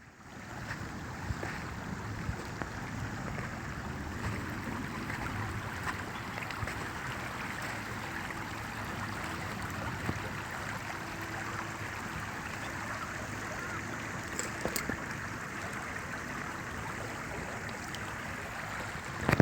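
Steady wash of seawater lapping against the shore.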